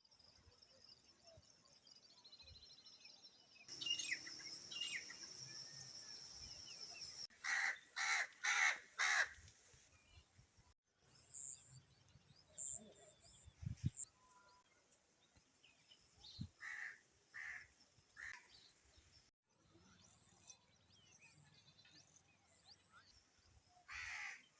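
Edited run of wild bird calls over faint natural background. In the middle comes a burst of four loud harsh calls in quick succession, with scattered shorter calls before and after, and a steady high-pitched whine in one stretch. The clips change with abrupt cuts.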